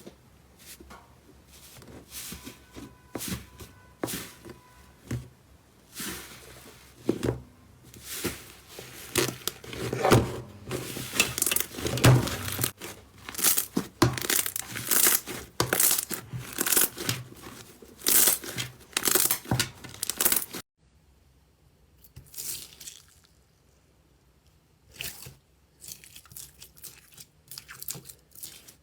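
Slime being squeezed and pulled apart by hand, giving dense crackling, popping and tearing sounds. The crackling thickens in the middle and stops suddenly, then returns as sparser pops near the end.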